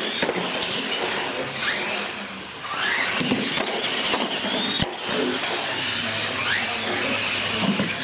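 Electric RC monster trucks racing, their motors whining up and down in pitch as they accelerate and let off. A sharp knock about five seconds in, from a truck hitting the floor or an obstacle.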